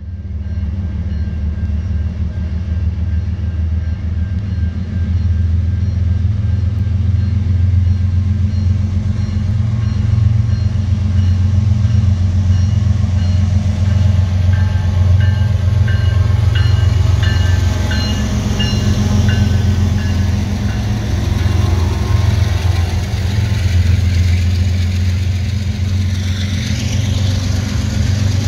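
CN freight train's diesel locomotives passing with a steady deep engine drone, while a bell rings over and over, loudest about halfway through as the locomotives go by. Near the end the boxcars roll past.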